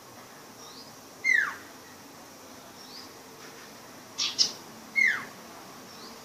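Young sirpu songbird still learning its song: two loud falling whistles about four seconds apart, with two sharp high chips just before the second, and faint short high notes between.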